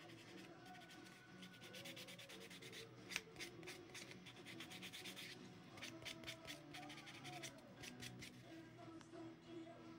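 Faint, quick scraping strokes of a hand-held nail file filing a plastic false nail tip, coming thick and fast from about two seconds in. Quiet background music underneath.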